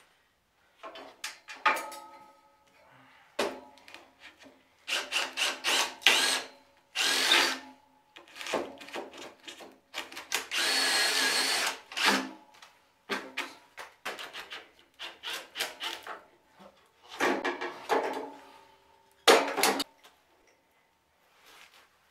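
Handheld power drill run in repeated short bursts, the longest lasting about two seconds, with knocks and clatter of parts and tools being handled between the bursts.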